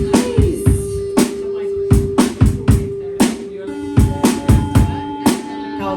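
Live drum kit playing a beat, with kick drum, snare and cymbal hits, over a music track carrying a long held note for the first half, then other sustained notes.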